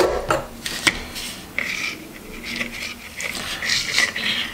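A plastic N scale model railway turnout and its thin wires being handled and slid on cardboard: a couple of light clicks, then several scraping, rubbing rustles.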